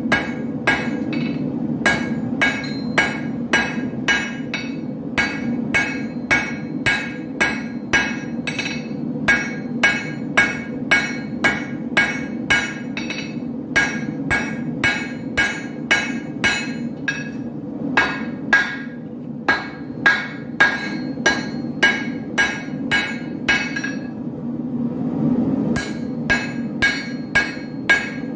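Hand hammer striking a sword blade on an anvil during forging, about two ringing blows a second, with a short break about three-quarters of the way through. A steady low hum runs underneath.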